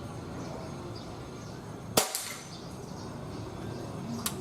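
.177 air rifle firing once about two seconds in, a single sharp crack with a short echo; a faint click near the end.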